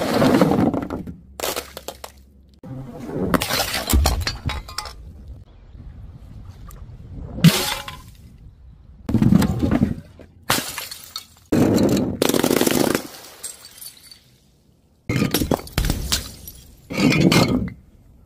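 Objects dropped from a height breaking on hard ground, one after another: about nine separate smashes and impacts with short gaps between them, including glass shattering and clinking.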